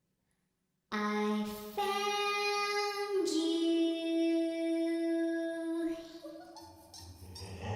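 Ghostly child's voice singing long, wordless held notes, the pitch dropping partway through, then fading away.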